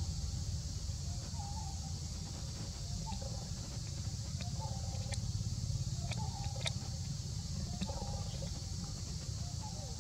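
Outdoor ambience: a steady high hiss and a low rumble, with a faint short animal call repeating every second or two and a few light clicks.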